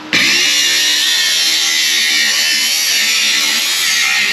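Cordless angle grinder with a nearly worn-out cut-off wheel cutting through a thin metal vent pipe: a loud, steady, high grinding noise over the motor's whine. It starts abruptly just after the beginning and stops suddenly near the end.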